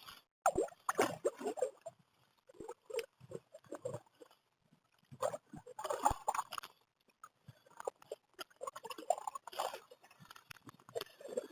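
Kayak paddle strokes: water splashing and dripping in short bursts about every two to three seconds.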